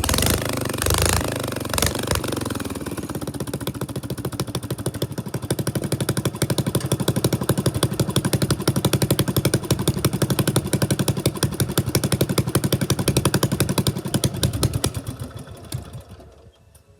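Single-cylinder Briggs & Stratton 13.5 hp engine of a riding lawn tractor running, a rapid even beat of firing pulses. It is busier and louder in the first couple of seconds, then runs steadily, and fades out near the end.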